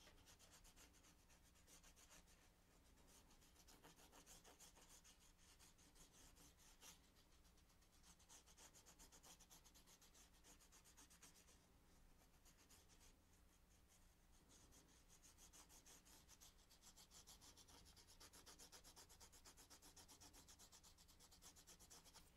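Faint, quick, repeated scratching of a watercolour pencil tip rubbed in small circles over textured cardstock.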